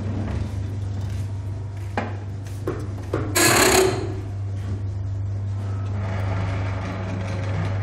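Rim-straightening machine humming steadily as it turns a bent 14-inch steel car wheel against its roller, with a few light knocks and a loud half-second scrape about three and a half seconds in.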